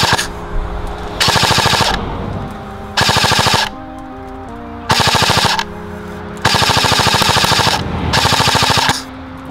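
E&L AKS-74U electric airsoft gun firing full-auto in short rapid bursts, about one every two seconds, the last one longer. Background music plays underneath.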